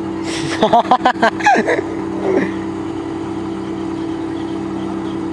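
Truck-mounted borewell drilling rig's engine running at a steady hum. A loud wavering call, like a shout, sounds over it from about half a second to two seconds in.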